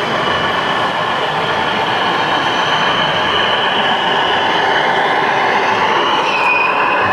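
Radio-controlled Scania model heavy-haulage truck driving, with a steady high whine from its drive that drops in pitch about six seconds in, over a constant hall noise.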